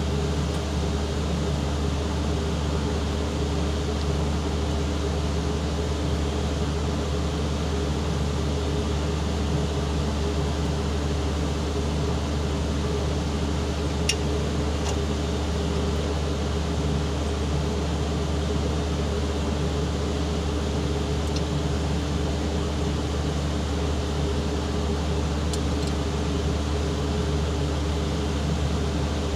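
Forklift diesel engine running steadily at idle, an even low hum with a couple of faint clicks about halfway through and again near the end.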